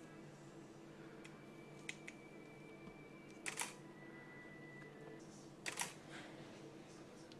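A few sharp clicks over a steady low hum: two small ticks about two seconds in, then two louder quick double clicks, about three and a half and five and a half seconds in.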